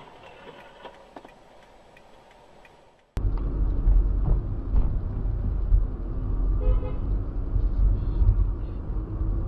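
Faint clicks, then a sudden loud, continuous low rumble of a car driving, heard from a dashcam inside the car. A short car horn toot comes about seven seconds in.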